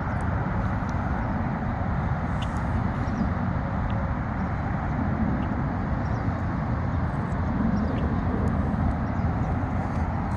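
Steady outdoor background noise, an even rumble and hiss with no clear source, and a few faint short ticks scattered through it.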